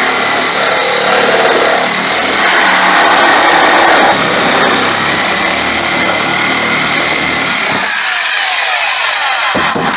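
A power tool cutting metal during the stripping of a Jeep: a loud, steady, harsh cutting noise that eases off about eight seconds in, as the tool winds down.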